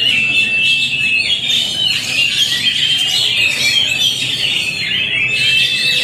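Several caged oriental magpie-robins singing at once: a dense chorus of overlapping whistles and chirps, with a long held high whistle near the start and again near the end.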